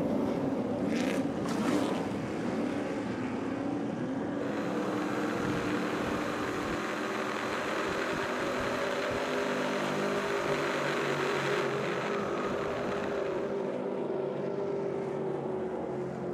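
Several Stadium Super Truck V8 race engines running hard past the cameras, their notes rising and falling with throttle and gear changes, over a steady hiss from tyres on the wet track.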